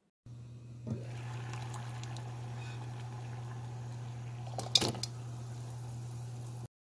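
A pot of water heating on an induction cooktop gives a steady low hum with a faint watery hiss. There is a brief knock about a second in, and a loud splash near five seconds in as dry ramen noodle pieces are dropped into the water.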